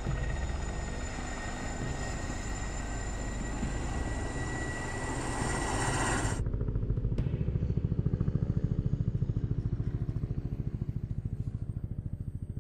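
Motor vehicle engines running. A dense rushing engine noise gives way, after a sudden cut about six seconds in, to a lower engine note with a fast, even pulsing that swells louder.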